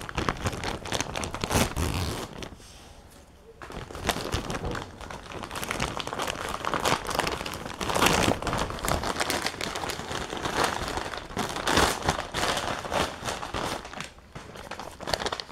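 A postal mailer package being handled and crinkled, with irregular rustling and crackling of its wrapping that pauses briefly about three seconds in.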